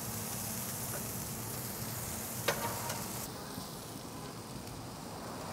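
Smashed beef burger patties sizzling steadily in oil on a cast iron griddle as they are flipped with a metal spatula. About halfway through there is one sharp clink of the spatula on the iron.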